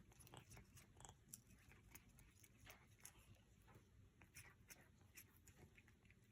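Faint, irregular crunching and clicking of a cat chewing on houseplant leaves.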